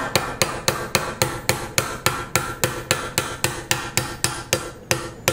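Brass hammer tapping a tight-fitting dowel pin into a precision hole in a 4140 steel plate: a steady, even run of light metallic taps at about four a second, with a faint ring between taps.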